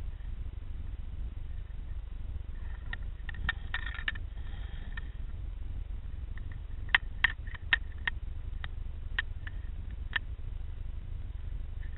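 Underwater camera microphone in a pond: a steady low water rumble with scattered sharp clicks, a cluster about three to four seconds in and about a dozen more between seven and ten seconds.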